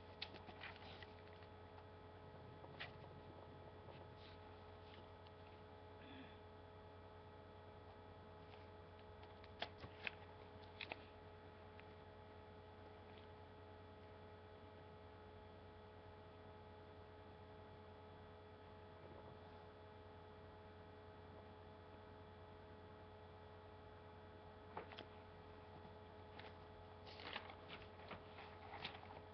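Near silence with a steady low electrical hum, broken by a few faint clicks about ten seconds in and again near the end.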